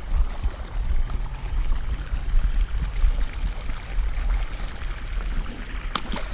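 Steady rush of water pouring into a pond at a pumped inflow, with a low rumble underneath. Two short, sharp clicks near the end.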